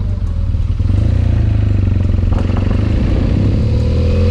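BMW R1200GS Adventure's boxer-twin engine running steadily under way on a gravel road, with wind and road noise. Its pitch rises near the end as the bike picks up speed.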